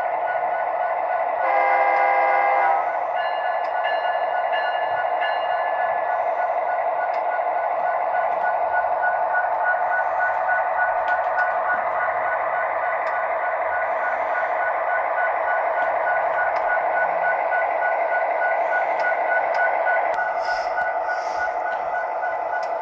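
Diesel engine sound from a model SD90/43MAC locomotive's sound decoder, running steadily through a small tinny speaker. A short horn blast sounds about two seconds in.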